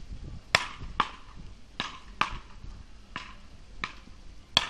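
Wooden beach-racket paddles hitting a small ball back and forth in a rally: sharp knocks, about seven of them, often in pairs about half a second apart.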